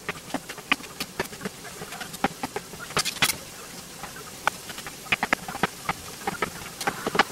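Food frying in a stainless steel skillet, a steady sizzle, with irregular clicks and taps of a utensil stirring against the pan, the loudest a pair about three seconds in and a quick cluster near the end.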